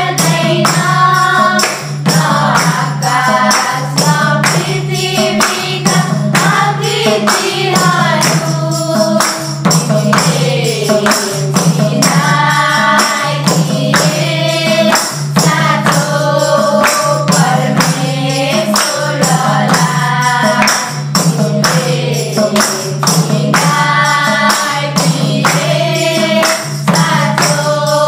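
A small group of singers sings a Nepali devotional bhajan together, accompanied by a madal hand drum, a jingling tambourine and hand claps keeping a steady beat.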